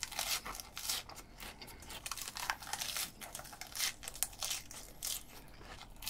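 Close-miked chewing of a mouthful of food: irregular crisp crunches and wet mouth clicks, several a second.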